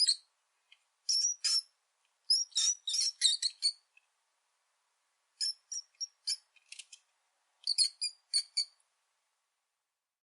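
Rat squeaking: short, high-pitched squeaks in quick runs of three to six, with silent gaps between the runs.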